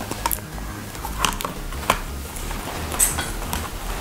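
Light clicks and knocks at irregular intervals as a laptop hard disk in its metal caddy is handled and set down into the laptop's drive bay.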